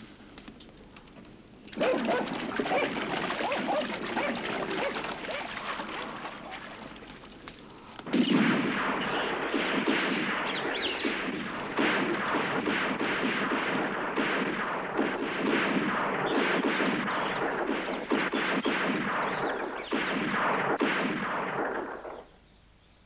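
Burning dry grass: a dense crackling of flames that starts suddenly about two seconds in, grows louder about eight seconds in, and cuts off shortly before the end.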